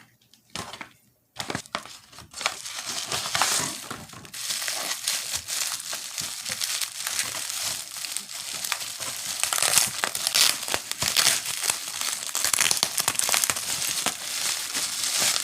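Toy packaging being opened by hand, crinkling and crackling steadily with small snaps and tearing. It starts about a second in.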